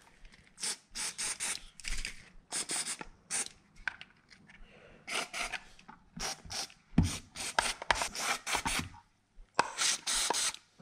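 Aerosol can of spray grease hissing in many short squirts onto a car door lock, with a longer squirt near the end. A knock about seven seconds in, from the plastic lock being handled.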